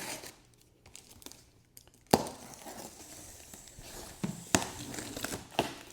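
Large cardboard shipping box being cut and opened: scratchy rustling of tape and cardboard, with a few sharp clicks and knocks, the first about two seconds in.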